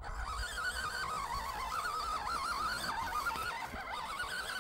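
Whine of a 1/12 scale MN78 RC Jeep Cherokee's 280 brushed motor and gearbox under load, its pitch wavering up and down continuously as the throttle changes.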